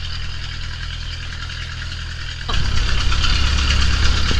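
Outrigger boat's engine running steadily under a haze of wind and water noise, growing louder about two and a half seconds in.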